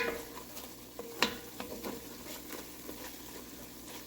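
Curry frying on low heat in a pot, a faint steady sizzle, with a spoon knocking against the pot at the start and again about a second in.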